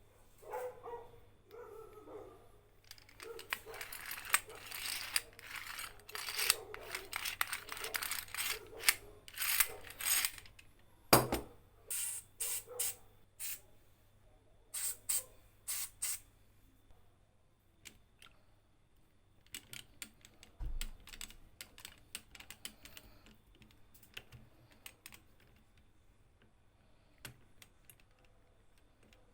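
Clicks, scrapes and knocks of an old rusty Archimedes drill's metal parts being handled, with a run of rasping scrapes in the first half and one loud knock about eleven seconds in.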